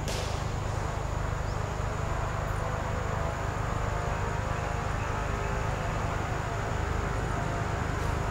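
Steady outdoor background: a constant low rumble under a steady high-pitched insect drone, with a faint engine-like hum midway through and a brief click right at the start.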